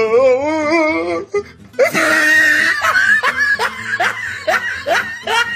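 Music with laughter over it, opening with one long wavering sung note.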